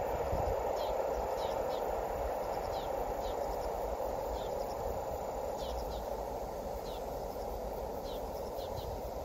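A freight train's running noise slowly dying away as it recedes, with short high chirps from birds repeating about once a second.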